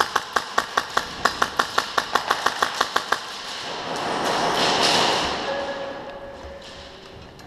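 AK-style airsoft rifle fired semi-automatically in a quick string of sharp clacking shots, about five or six a second, stopping about three seconds in. Then a swell of rustling as the shooter moves behind cover.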